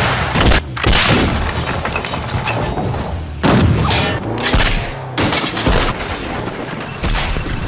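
Tank cannon shots and shell explosions from a film soundtrack: sudden loud blasts about half a second and a second in, again at about three and a half seconds, and a pair a little after five seconds, over a steady low rumble.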